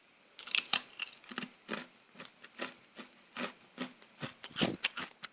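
Someone chewing a crunchy sesame seed and honey bar: irregular crisp crunches, about two or three a second, starting about half a second in.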